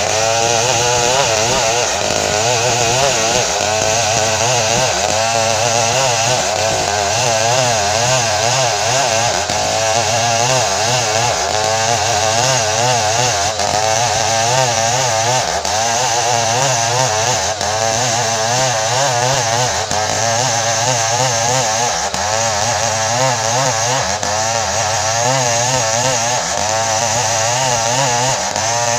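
Stihl 070 two-stroke chainsaw running hard without a break while cutting ironwood, its engine pitch wavering quickly up and down under load.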